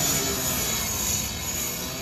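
Power rotary saw cutting into the sheet metal at the front of a burned-out car, a continuous metallic screech over the saw's high-revving motor. The blade is forcing open the hood to reach the engine compartment.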